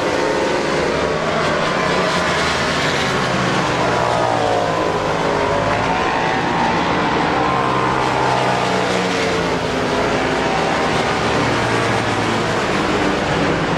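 Racing cars at high revs on a circuit, several engine notes at once over a steady loud rush, their pitch dipping and rising again about four to six seconds in.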